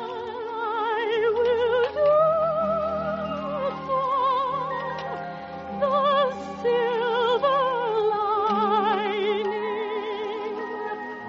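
Orchestral music: a high melody with wide vibrato over held chords in the accompaniment.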